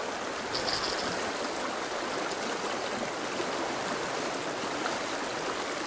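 Steady rush of a shallow stream flowing over gravel and stones. A brief high chirp sounds about half a second in.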